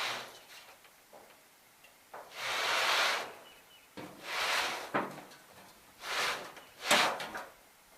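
A loose piece of roofing scraping and sliding as it is shoved up onto a shed roof, about five short scrapes with a few sharp knocks between them.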